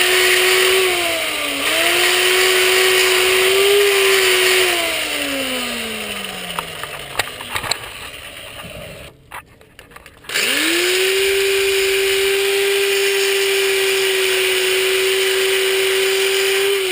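Electric angle grinder working through body filler on a keel. It spins up, dips briefly under load, then winds down. After a short gap it starts again and runs steadily.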